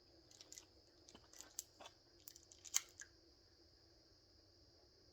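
A few faint scattered clicks and taps over the first three seconds, the sharpest near three seconds in, over a steady faint high-pitched hum. After that, near silence.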